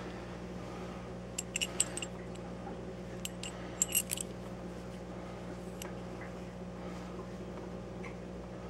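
Brain-teaser puzzle pieces clinking together as they are handled: two short flurries of light clinks a couple of seconds apart, over a steady low hum.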